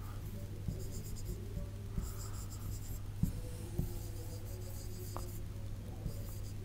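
Marker writing on a board: several short runs of scratchy, squeaky pen strokes with small ticks as the tip touches down.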